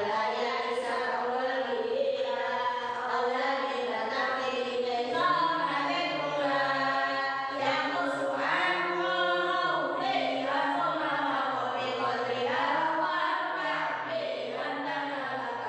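Unaccompanied melodic vocal chant with a choir-like sound, held in long sung lines that rise and fall slowly, with no instruments or beat.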